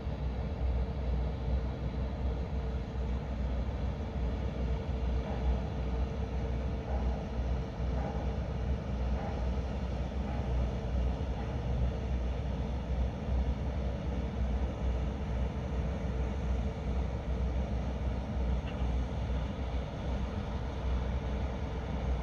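Diesel engine of a small river tug passing at a distance: a steady low drone with a faint constant hum above it.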